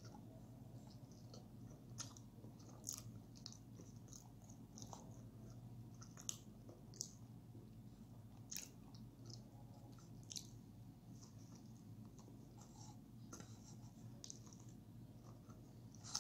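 Faint close-up chewing and mouth sounds of a person eating hot cake (pancake), with small lip smacks and clicks at irregular intervals over a steady low hum.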